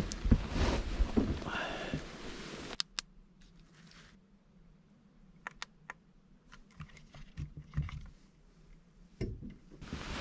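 Rustling handling noise for the first few seconds, then, after an abrupt drop, scattered small clicks and light taps of a hand handling a camping lantern on a plastic tabletop.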